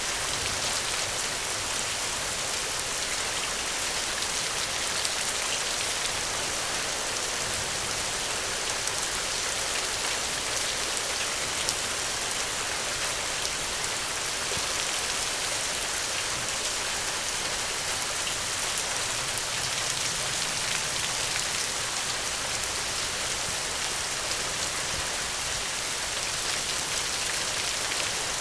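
Steady rain falling on a surface, an even hiss of many small drops. There is no thunder.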